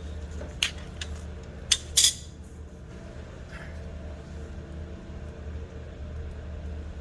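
Sharp metallic clinks of wrenches and brake parts being handled while a brake caliper is fitted: one about half a second in, then a quick louder pair near two seconds. A steady low hum runs underneath.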